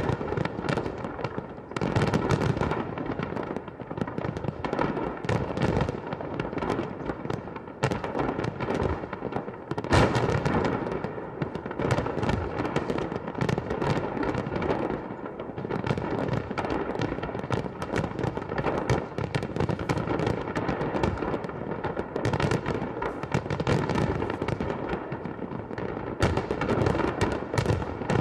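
Fireworks display: a continuous barrage of bangs and crackling, with one especially loud bang about ten seconds in.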